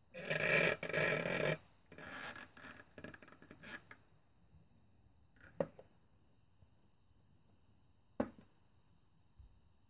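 A plastic cup and straw being rubbed and scraped. A loud scrape lasts about a second and a half, softer scratching follows, and later come two sharp clicks.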